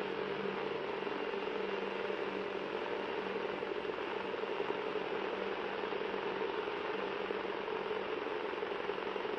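A steady mechanical whirring hum over hiss, with a few faint held tones, unchanging throughout.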